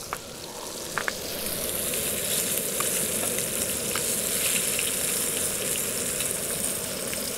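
Walleye fillets sizzling in hot fat in a frying pan, a steady hiss that swells over the first second or two. A few light clicks come from the tongs turning the fillets.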